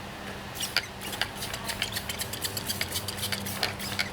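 Hand trigger spray bottle squeezed again and again, giving a quick, irregular run of short spritzes and clicks as cleaner is sprayed on.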